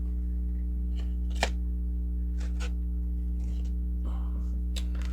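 Baseball trading cards being handled and flipped over one by one: soft sliding and rustling, with a few sharp card clicks, the loudest about one and a half seconds in. A steady low electrical hum runs underneath throughout.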